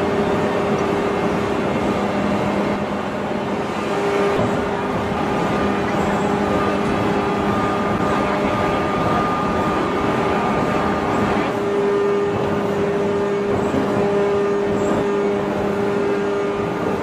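Hydraulic open-die forging press and manipulator working a red-hot steel shaft: a loud, steady machinery drone with a low hum and a higher whine that fade and come back. There are no hammer blows.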